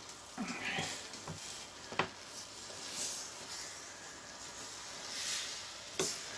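Wooden spoon stirring thick, boiling pineapple jam in a stainless steel pot: a faint hiss from the bubbling fruit, with sharp knocks of the spoon against the pot about two and six seconds in.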